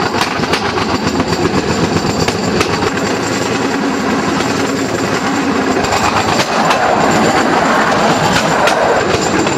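Cambodian bamboo train (norry) running along the rails: a steady loud rattle and rapid clatter of its wheels over the worn track.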